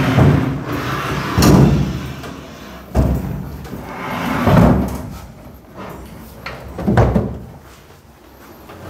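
A wardrobe being shifted and turned into place by hand: a series of heavy knocks and thuds, about five of them a second or two apart.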